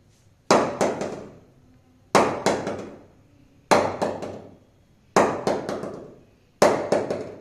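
Wooden bat mallet knocking the face of a new Kashmir willow cricket bat: five quick clusters of three or four sharp knocks, about one cluster every second and a half. The owner hears it as a solid, sweet sound, the sign of a good bat.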